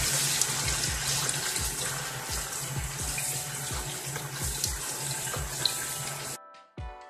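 Tap water running over red lentils in a mesh strainer and splashing into a stainless steel sink as the lentils are rinsed. Background music with a steady beat plays underneath, and the water sound cuts off abruptly near the end, leaving only the music.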